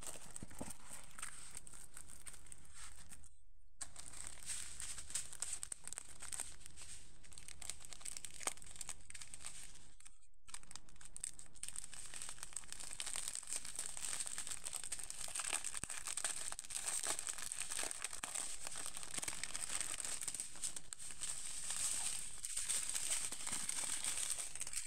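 Clear plastic packaging crinkling and rustling continuously as it is handled, with many small sharp crackles.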